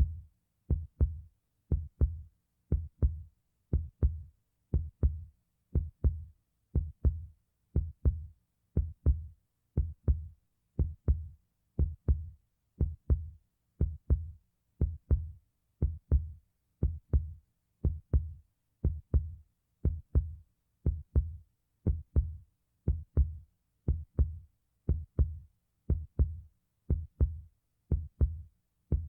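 Heartbeat sound effect: a steady lub-dub of paired low thumps, about one beat a second, with silence between beats.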